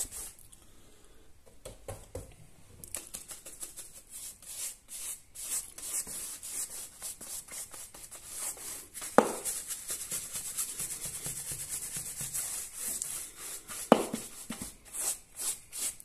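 A flat paintbrush stroking paint onto a wall: rhythmic, scratchy bristle strokes, about two to three a second near the end, after a short pause at the start. Two sharp knocks stand out, about nine and fourteen seconds in.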